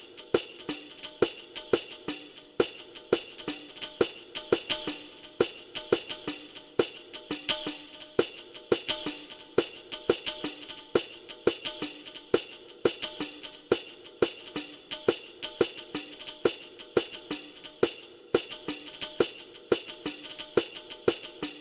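Roland HPD-20 HandSonic hand-percussion pad playing a jingly, tambourine-like kit in a steady rhythm: loud accented strikes about every two-thirds of a second with softer strikes between. It stops right at the end and rings out briefly.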